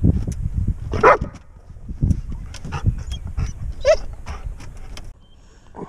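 Golden retriever giving several short, high yelps and whines that slide in pitch, over a low wind rumble on the microphone.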